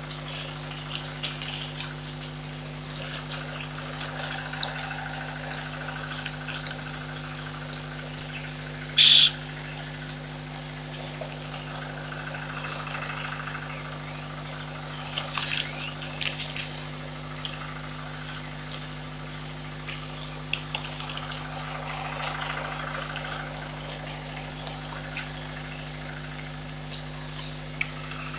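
Sharp, short animal calls at irregular intervals a few seconds apart, with one longer, louder call about nine seconds in, over faint chirping and a steady low hum.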